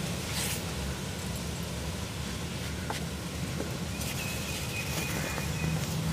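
Dry cast cement cones being crumbled and rubbed by hand into a pile of cement powder: soft gritty crumbling with faint scattered crackles. Under it runs a steady low rumble, and a thin high tone sounds for about a second and a half in the latter half.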